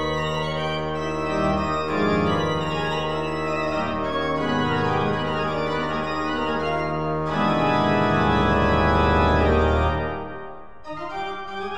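Background music of long held chords that change every second or two, with a deep bass note swelling near the end before the music thins out and a new phrase begins.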